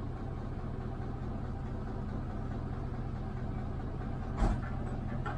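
Engine idling steadily with a low hum, and one sharp knock near the end.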